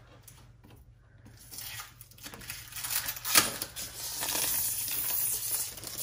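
Clear protective plastic film being peeled off a Nescafé Dolce Gusto coffee machine, crinkling and rustling. It starts about two seconds in, with a sharp click about a second later.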